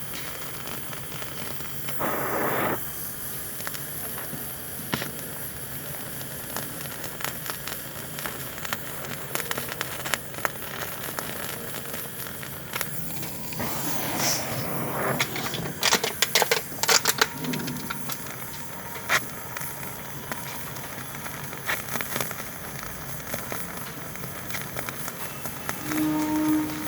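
An electric welding arc crackling and spitting in irregular bursts over a steady hiss, with the densest, loudest crackles about halfway through.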